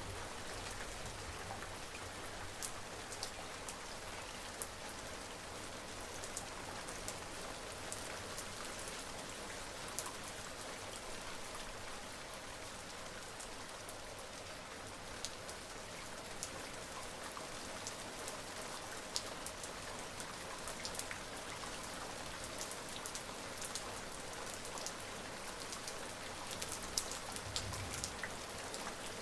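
Steady rain falling on a surface, an even hiss with many individual drops ticking close by.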